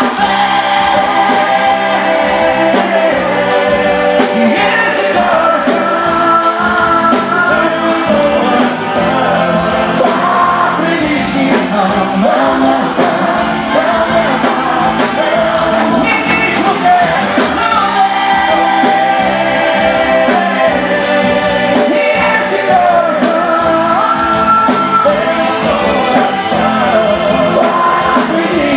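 A live forró band plays a romantic song with singing over a steady beat.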